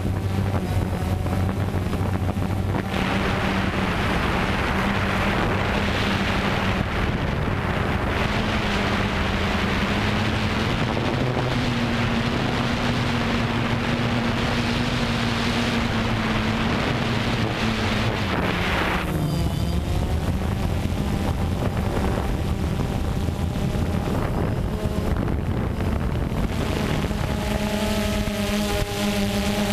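DJI Phantom 2 quadcopter's four brushless motors and propellers droning, heard from the GoPro mounted on the drone, with wind rushing over the microphone. The hum steps up in pitch about eleven seconds in and drops back about nineteen seconds in, and a heavier rush of air noise covers the stretch from about three to nineteen seconds in.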